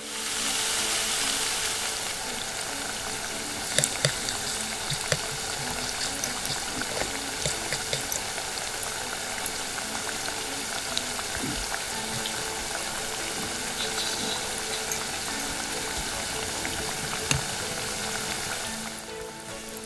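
Sliced onion, and later ground beef, sizzling in hot olive oil in a miniature stainless steel pot: a steady frying hiss that starts as the onion drops into the oil and fades near the end, with a few sharp clicks.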